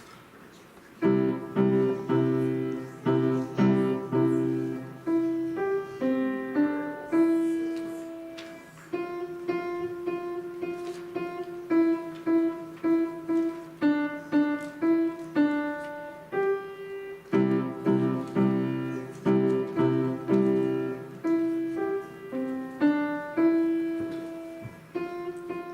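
Piano playing, starting about a second in: repeated struck chords and a melody, each note fading after it is struck.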